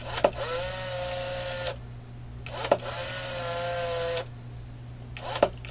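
Polaroid SX-70 Model 2 instant camera fired repeatedly. Each press gives a sharp shutter click, then the camera's motor whirs at a steady pitch for about a second and a half and stops with a click. Two full cycles are heard and a third starts near the end, with the motor cycling normally as it runs the film-eject mechanism on an empty pack.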